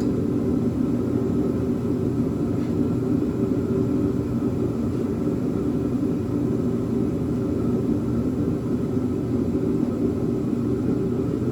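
Steady low mechanical hum and rumble that holds even and unchanged throughout.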